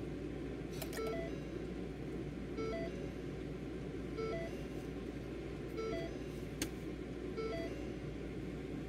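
A short two-note electronic chime repeating about every one and a half seconds over a steady background hum, with a sharp click or two.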